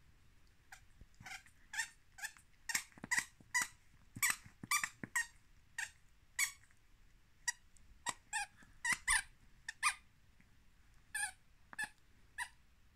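Plush duck squeaky toy squeaking as a dog chews it: about two dozen short squeaks in irregular runs, with two brief pauses.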